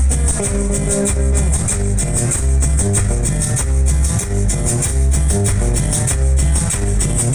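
Cumbia played loud through a sonidero sound system: guitar lines and a shaker rattle over a heavy, regular bass beat.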